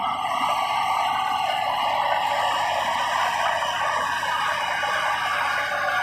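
Komatsu D70LE bulldozer running steadily, with a constant high-pitched whine over the machine noise.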